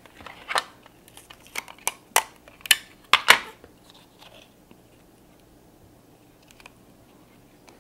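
Crisp crunching and crackling of a tape-wrapped cardboard puppet piece being handled and pressed, a series of sharp clicks in the first three and a half seconds, then faint handling.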